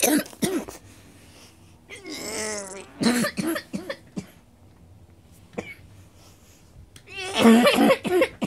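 A person coughing and clearing their throat in several separate bouts, the longest and loudest close to the end.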